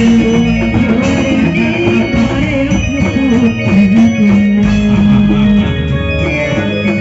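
Live Reog Indramayu band music accompanying a masked dance: a sustained melody line over drums and cymbals, played loud and continuous.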